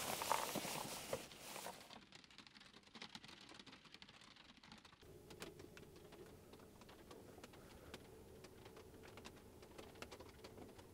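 Faint rustling and handling noises with scattered light clicks. After a sudden change about five seconds in, a quiet steady hum continues inside the car's cabin under occasional soft taps.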